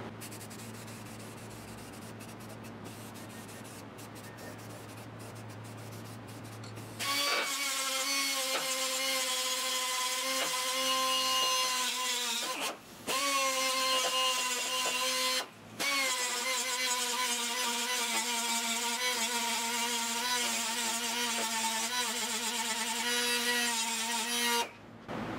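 A small air-powered cut-off tool with a cutting wheel grinding down welds on a steel windshield frame: a steady high whine that stops briefly twice as the trigger is released, then cuts off near the end. Before it starts, for the first several seconds, only a low steady hum is heard.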